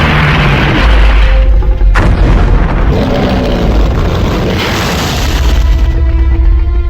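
Monster-movie battle soundtrack: loud music over deep booms and rumbling, with a sharp crash about two seconds in.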